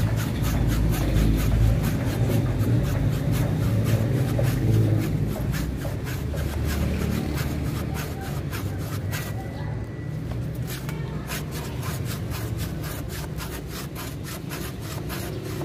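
A small hand pruning saw cutting through a bougainvillea trunk, with quick, even rasping strokes. A steady low rumble runs underneath.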